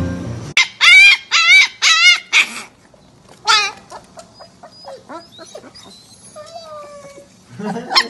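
Husky puppy yipping: a quick run of about five high, wavering yelps, one more a second later, then softer whimpers.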